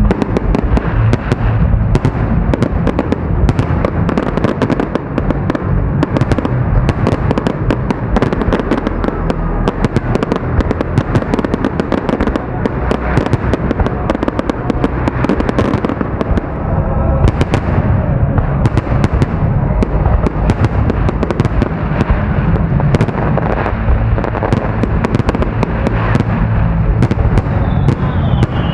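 Continuous fireworks salute: a dense run of booming shell bursts and crackling, with no break. Through a budget action camera's microphone, the low booms clip and blur together into a constant rumble.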